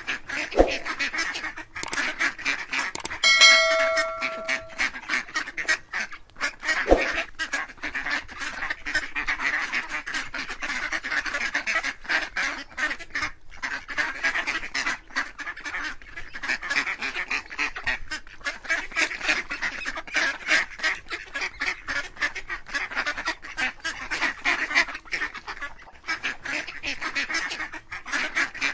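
A farmyard flock of domestic ducks and ducklings calling all at once: a dense, continuous chatter of quacks and peeps. A steady held tone sounds for about a second and a half a few seconds in.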